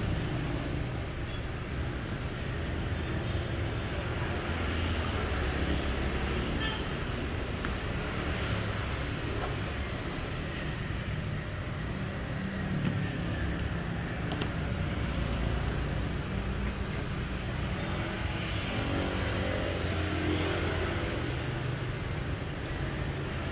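Steady road traffic noise, a low rumble that swells and eases a few times as vehicles go by. There is a faint click about fourteen seconds in.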